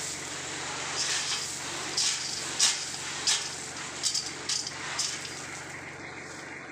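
Crushed stone pouring off the tipped bed of a small pickup dump truck onto a pile: a steady rushing hiss with irregular louder clatters as clumps of stones slide out, over the truck's engine running with a low steady hum. The pour eases off near the end.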